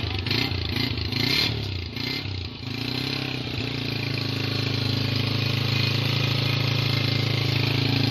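Honda CG 125's single-cylinder four-stroke engine running, its pitch rising and falling for the first few seconds, then settling into a steady, even run.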